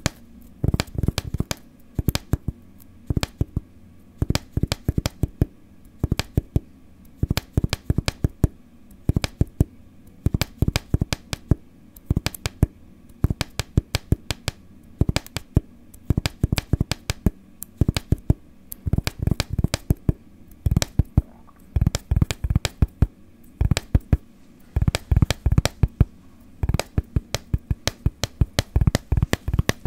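Rhythmic tapping: quick runs of sharp taps, several a second, separated by brief pauses.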